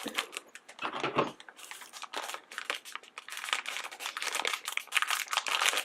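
Plastic blind bag crinkling and crackling as it is cut open with scissors and handled, an irregular run of crackles.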